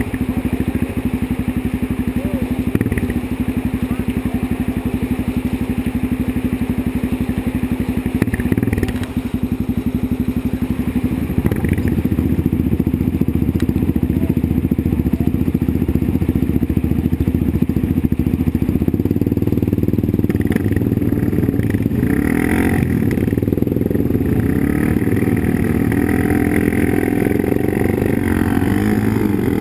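Quad (ATV) engine running under way as it is ridden, heard close up. The engine eases off briefly about nine seconds in, then runs louder and rougher from about eleven seconds on.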